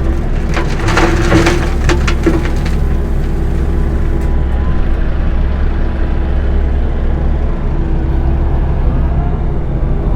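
Kobelco SK85 excavator running under load while its bucket breaks up concrete: a few sharp cracks and crunches in the first two or three seconds, then the engine running steadily.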